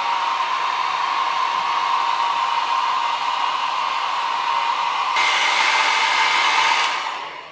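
Handheld hair dryer blowing steadily on damp hair, with a whine over the rush of air. About five seconds in it gets louder and brighter, then dies away near the end as it is switched off.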